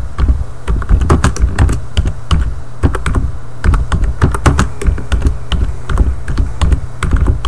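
Typing on a computer keyboard: an uneven, rapid run of keystroke clicks, over a steady low hum.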